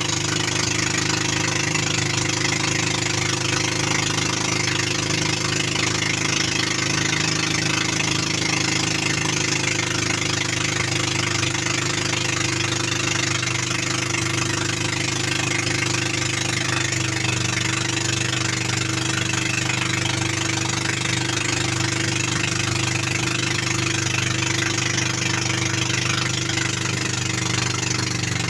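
Small outrigger boat's engine running at a steady speed, heard from aboard, over a constant hiss.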